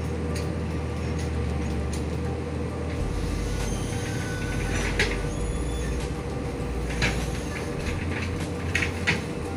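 A steady low mechanical drone, like a running engine, with a few sharp snaps and cracks in the second half.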